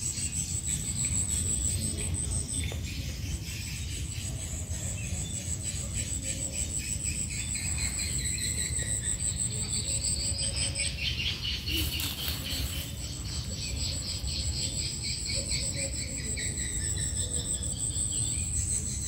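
Crickets trilling: a high, even, steady trill that breaks off for about two seconds near the middle, with fainter chirping insects beneath.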